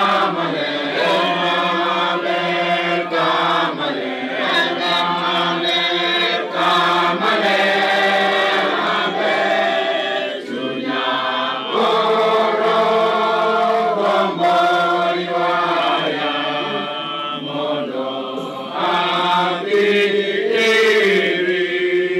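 A group of voices singing a chant-like hymn together in long held notes that move step by step in pitch.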